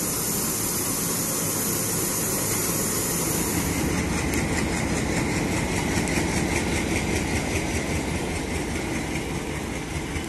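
WDM-3A diesel-electric locomotive's ALCO V16 diesel engine idling steadily.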